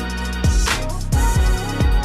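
Background music with a steady hip-hop-style drum beat, deep kick drum and bass, with a cymbal crash about two-thirds of a second in.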